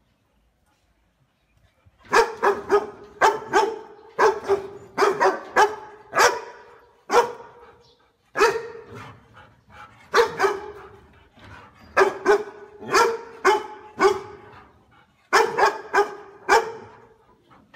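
A large dog barking in quick bouts, several barks a second, starting about two seconds in and broken by two short pauses.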